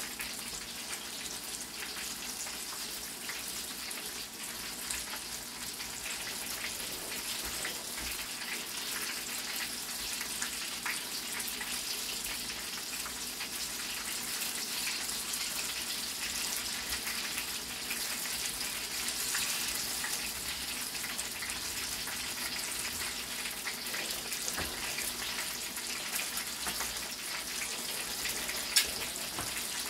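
Steady hiss with faint scattered crackles from a wok heating on a lit gas burner.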